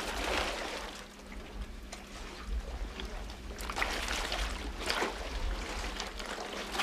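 Sea water washing and splashing around a boat's hull and the rocks, coming in uneven surges over a low steady rumble.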